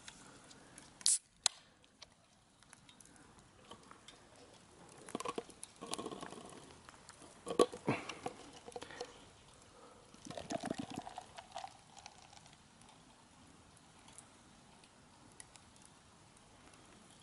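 A beer can's pull-tab cracked open with one sharp pssht about a second in, then a few short bursts of gurgling and splashing as the beer is poured from the can into a plastic cup.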